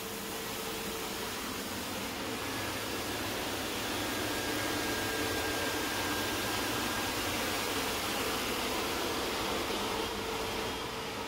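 Aluminum-plastic separation and recycling line running: a steady machine whir and hiss with faint hum tones from its mills, air separator and vibrating sieve, a little louder in the middle.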